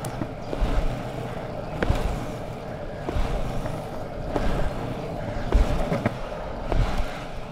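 Longboard wheels rolling on an asphalt path with a steady rumble, and a low thump with a sharp tick about once a second as the rider's foot pushes off the ground.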